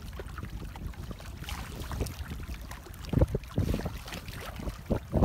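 Water splashing and sloshing as a fishing net is hauled through shallow water and lifted out, with wind rumbling on the microphone. The splashes grow louder and more frequent about three seconds in, as the net comes up.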